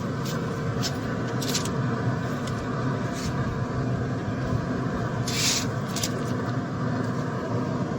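Steady low mechanical rumble with a faint hum, broken by a few light clicks and one brief hiss-like scrape about five seconds in.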